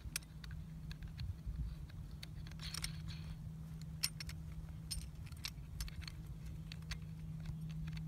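Scattered small clicks and light rattles of hardware being handled as the Workhorse hose-clamp mount is fitted to a wildland pack strap with knurled nuts, over a steady low hum.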